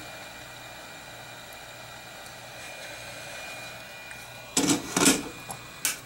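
Heat gun blowing steadily while shrinking heat-shrink tubing over a freshly soldered wire joint. Two loud knocks come about four and a half seconds in, then a sharp click, and the blowing stops at the end.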